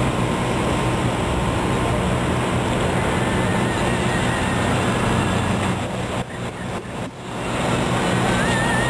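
Road traffic on a city street: cars driving past, a steady noise of engines and tyres on the road, dipping briefly about six seconds in.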